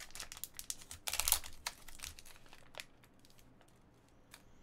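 Plastic packaging crinkling and clicking as trading cards are unwrapped and handled. It is busiest in the first three seconds, loudest about a second in, and sparser after that.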